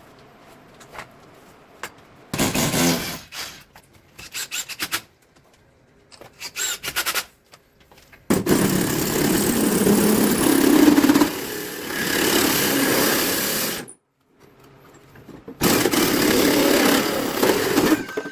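A power tool run in bursts: a few short on-and-off bursts, then a long run of about five and a half seconds and another of about two and a half seconds near the end.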